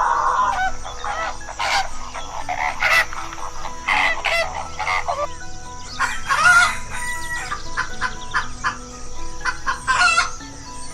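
Chickens clucking, with a rooster crowing, in a string of short calls.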